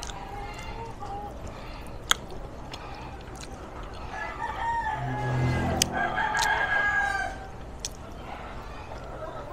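A rooster crowing, the loudest call running from about four and a half to seven seconds in, with fainter clucking calls around it. A single sharp click about two seconds in.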